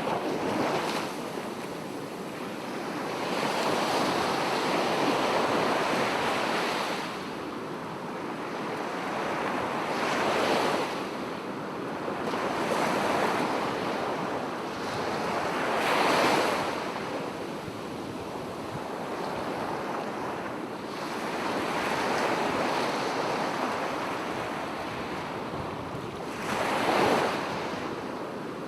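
Small sea waves lapping and washing on the shore, swelling and falling back every few seconds, with several louder wave breaks, over a steady hiss of breeze.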